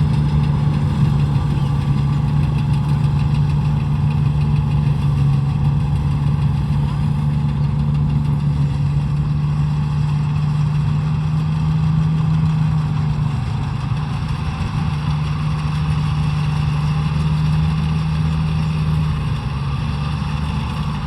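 An engine running steadily at constant speed, a continuous low hum.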